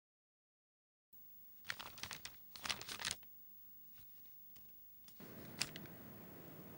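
Brief crinkling and rustling, clustered between about two and three seconds in, with a few faint ticks afterwards over quiet room tone; the first second is silent.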